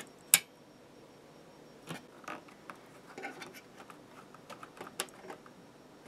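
A few clicks and light plastic handling noises as Ethernet cables are fitted and RJ45 plugs are pushed into the switch's ports. The loudest click comes just under half a second in, with smaller ones spread through the rest.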